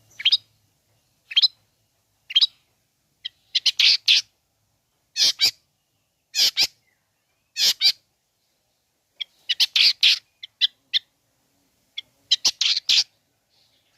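Long-tailed shrike (cendet) calling in short separate bursts: three brief rising notes first, then clusters of harsh, scratchy notes about every one to two seconds.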